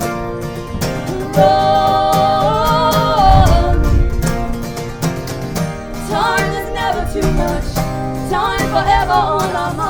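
A live band playing a song on guitars, with long sung notes that bend up and down over the strumming, once in the first half and again in the second.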